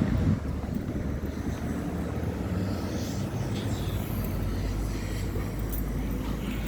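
Steady low mechanical rumble with a faint, even hum.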